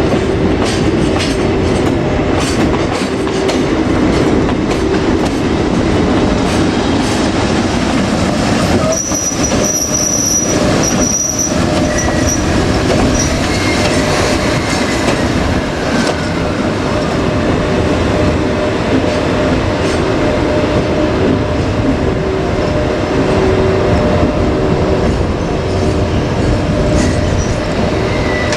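Freight train rolling past close by, wheels clattering over rail joints with a steady rumble. High-pitched wheel squeal rises about nine seconds in and lasts a few seconds.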